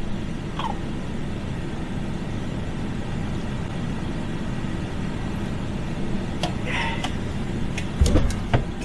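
Steady low rumble of an idling vehicle engine, with a few sharp clicks about eight seconds in.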